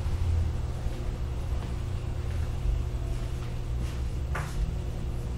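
Steady low background rumble, with a faint short knock about four and a half seconds in.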